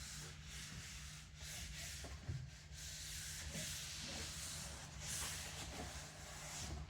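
Hands rubbing and smoothing a freshly glued PVC panel onto a PVC inflatable boat tube: a soft, uneven hissing rub that swells and fades in strokes, over a faint steady hum.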